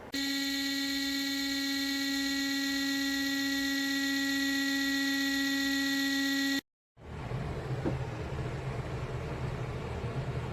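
A loud, steady electric buzz with a single low pitch that cuts off suddenly after about six and a half seconds. After a moment's silence a low rumbling noise follows.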